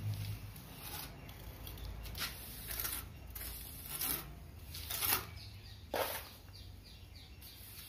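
Steel trowel pressing and scraping cement mortar onto a plastered wall edge: a few separate, irregular scrapes and pats.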